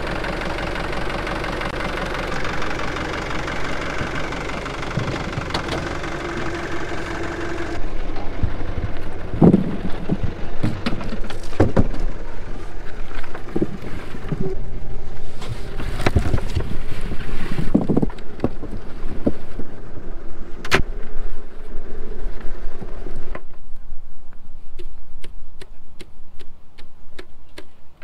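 New Holland TL100 tractor's diesel engine running steadily for the first several seconds, then a run of irregular thuds and knocks as red potatoes are tipped from a plastic picking basket into a cardboard bulk bin; softer clicks near the end.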